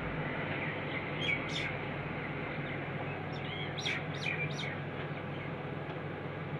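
Dawlance microwave oven running with a steady low hum while it heats roti. A few short bird chirps come over it about a second in and again around four seconds.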